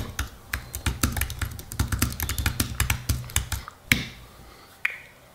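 Rapid typing on a computer keyboard, a quick run of clicking keystrokes for about three and a half seconds, then two more separate taps before it stops.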